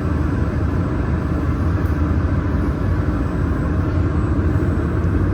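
Water chiller of a fiber laser welding machine running: a steady low hum with an even rushing noise over it.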